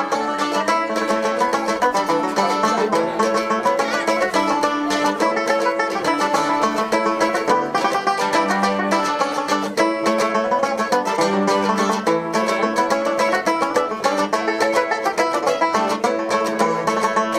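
Live music: an instrumental passage of fast plucked-string picking, with many quick, short notes over a steady low accompaniment.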